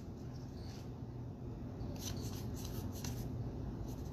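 Baseball trading cards being handled and slid against each other as a pack is sorted, with soft scrapes about two and three seconds in, over a low steady hum.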